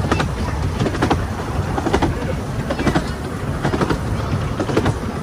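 Narrow-gauge railway carriage running along the track: a steady rumble with the wheels clicking over the rail joints, the clicks coming in pairs about once a second.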